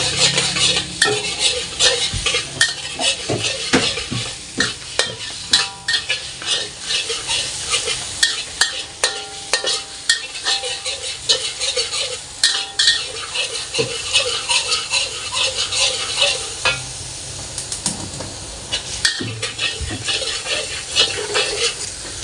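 Minced garlic sizzling in hot oil in a black wok while a metal spatula stirs it, with frequent scrapes and clinks of the spatula against the wok.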